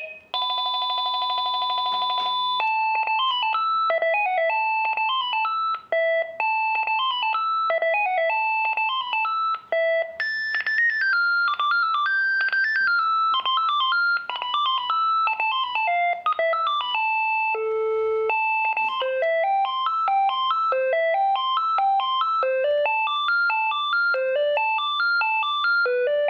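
Panasonic 5.8 GHz cordless phone handset previewing its built-in ringer tones: first a steady electronic trill ring lasting about two and a half seconds, then simple beeping electronic melodies played note by note. A different melody starts about 17 seconds in.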